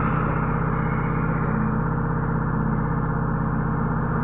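Cabin sound of a Trolza-5275.03 Optima trolleybus in motion: a steady electric hum made of several low tones held at one pitch, over continuous running and road noise.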